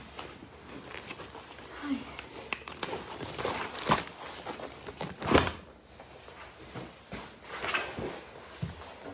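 Phone handling noise: rustling of a handbag and coat with a string of small clicks and knocks, the loudest a thump about five seconds in as the phone is swung about.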